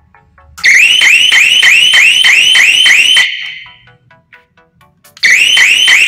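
Wireless panic-alarm siren sounding loudly in a fast repeating rising whoop, about three or four whoops a second, set off by the foot-pedal switch; it stops after about two and a half seconds and starts again about a second before the end.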